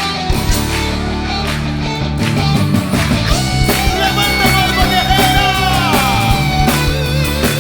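Instrumental intro of a gospel rock song: a full band with drums, bass, guitars and keyboards, with a lead line holding a long note and gliding down about six seconds in.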